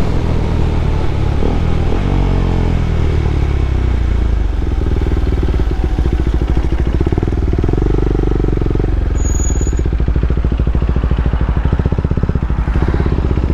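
KTM Duke 390's single-cylinder engine running loud through an Austin Racing aftermarket exhaust, its pitch falling and rising over the first few seconds and then holding steadier.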